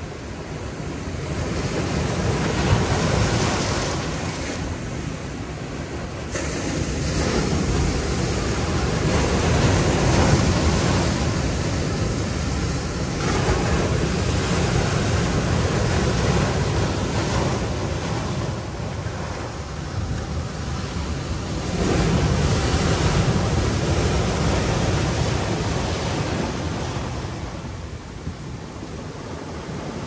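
Ocean surf breaking on a boulder shore and washing in and out among the rocks: a continuous rushing noise that swells and ebbs about four times as successive waves come in.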